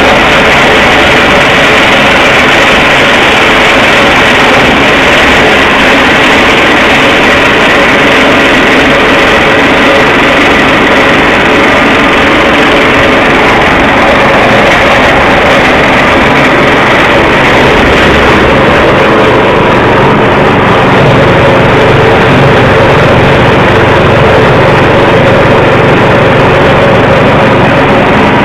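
Livestock forage chopper machine running with a loud, steady mechanical noise.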